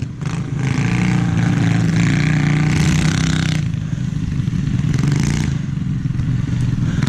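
Predator single-cylinder engine of a Motovox mini bike running hard as the bike is ridden. Two short bursts of scraping noise come about three and five seconds in.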